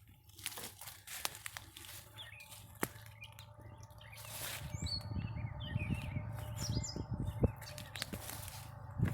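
Small birds chirping in woodland, with scattered sharp snaps and crunches of dry brush. From about halfway through, a low uneven rumbling noise on the microphone.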